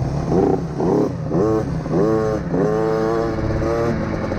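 Small dirt bike engines running: a low steady drone under about five short revs that each rise in pitch, the last held longer near the end.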